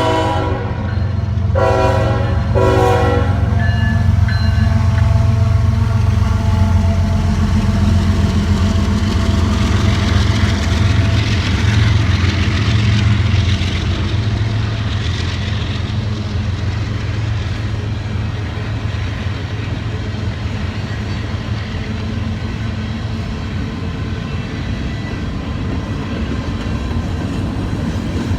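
Locomotive air horn sounding a chord that cuts off about a second and a half in, followed by two short blasts. Then the train rolls past with a steady low engine rumble and wheel noise that slowly eases off.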